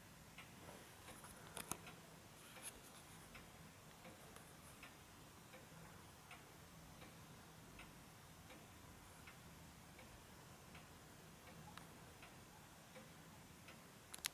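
Two-weight Vienna regulator wall clock ticking faintly and evenly, about one and a half ticks a second. A few sharper, louder clicks come about two seconds in and again right at the end.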